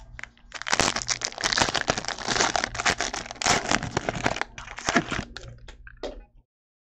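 Trading-card pack wrapper being crinkled and torn open: a dense run of crackling for about five seconds, then it cuts off abruptly about six seconds in.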